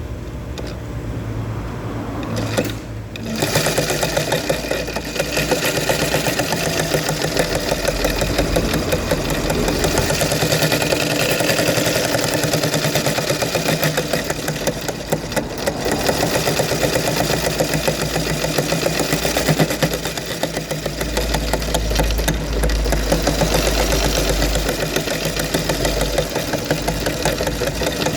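A low hum, then about three seconds in a sewing machine starts and runs steadily, its needle stitching in a fast, even rhythm.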